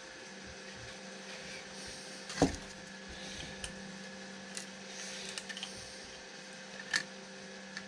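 A few sharp clicks and taps from plastic filament and a 3D-printed splicing jig being handled, the loudest about two and a half seconds in and another near the end, over a steady faint hum.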